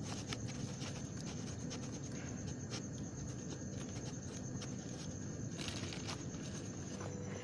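Kitten's claws scratching and clicking on the cardboard floor of a box as it crawls, in scattered small ticks over a steady hiss with a faint high steady tone.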